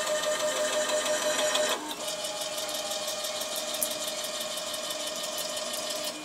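Stepper motors of a CNC router driving the gantry while the machine homes its axes: a steady multi-tone whine that drops in level and shifts pitch about two seconds in, as a different axis moves.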